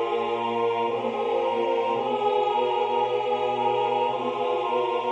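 Four-part choir singing slow, long-held chords, with one upper part moving in slurred figures on 'ah' above the held lower voices.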